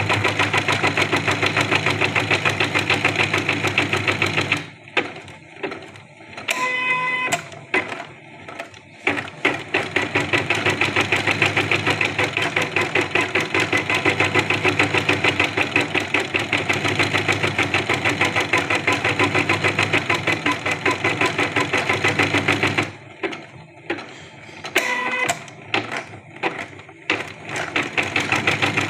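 Janome Secio embroidery machine stitching with a fast, even needle rhythm. It stops twice for several seconds, with scattered clicks and a short electronic beep in each pause, then starts stitching again.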